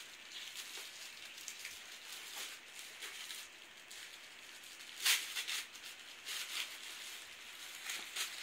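Tissue paper rustling and crinkling as a child's hands pull at a wrapped gift, in irregular crackles with a louder crackle about five seconds in.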